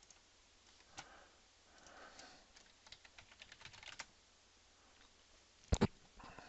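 Typing on a computer keyboard: a single keystroke, then a quick run of keystrokes, and near the end two sharp clicks close together, the loudest sounds.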